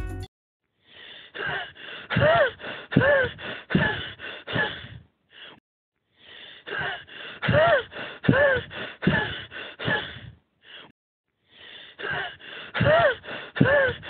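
A short clip of breathy, pitched vocal sounds, a quick run of syllables rising and falling in pitch, played three times in identical repeats with about a second's gap between.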